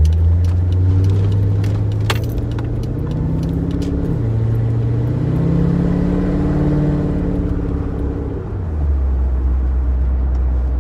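Corvette's V8 heard from inside the cabin while accelerating. The engine's pitch climbs, drops at a gear change about four seconds in, and climbs again. Near the end it falls to a steady low drone.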